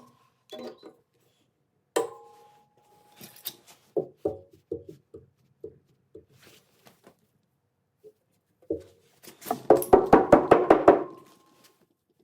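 Hammer blows on a steel car body panel during dent repair: single ringing strikes, then a slower run of taps, then a quick flurry of loud blows near the end.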